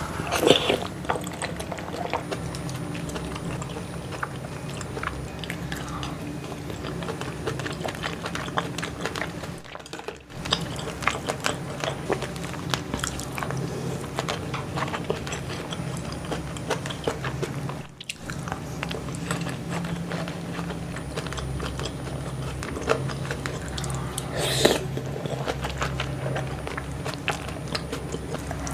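A person eating close to the microphone: chewing and biting with many small, sharp, wet clicks and smacks. The sound drops out briefly twice, about ten and eighteen seconds in.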